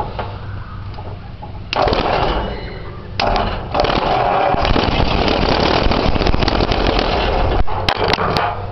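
Old engine being cranked by its starter motor, jumped with a heavy wire: a short crank, then a longer one of about four seconds, with a few sharp clicks near the end. The engine is short of fuel, without a fuel supply hooked up.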